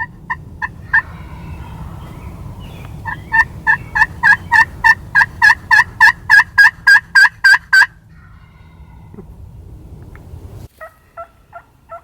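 Wild turkey calling: a few short notes, then a long, loud run of evenly spaced short calls at about four a second, ending abruptly, with a softer, lower-pitched series near the end.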